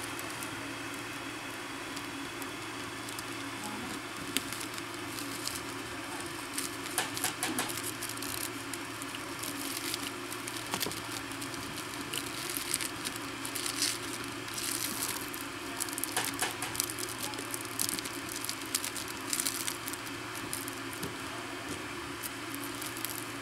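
A RAW cigarette rolling machine being rolled back and forth by hand: the apron scratches and rustles over the rollers around the tobacco, with light irregular clicks, busiest through the middle.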